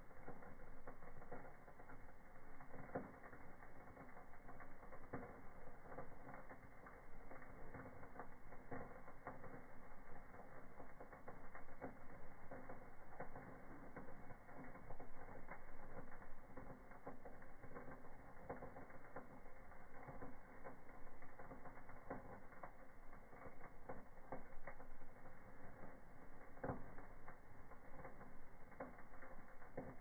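Wood fire in a fireplace crackling, with frequent irregular small pops and snaps.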